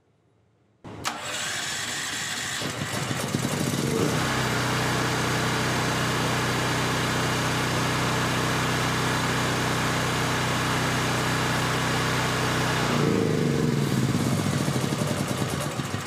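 Firman portable generator's engine starting about a second in and settling by about four seconds into a steady run, its note wavering briefly near the end. It starts and runs properly on a freshly cleaned carburetor: "runs like a champ."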